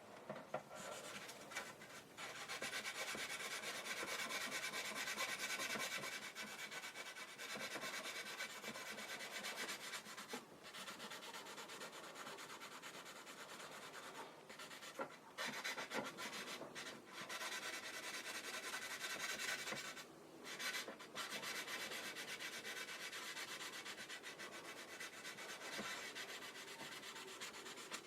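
Sanding a plastic model-kit part: a steady run of quick rubbing strokes, broken by a few short pauses.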